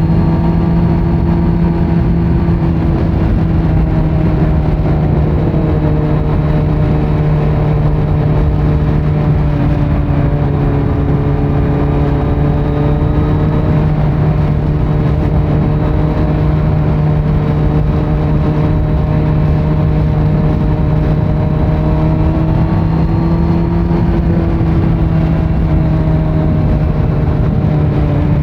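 Kawasaki Z900's 948 cc inline-four running through a Leo Vince muffler with the dB killer removed, holding fairly steady revs under way. The pitch shifts only slightly a few times.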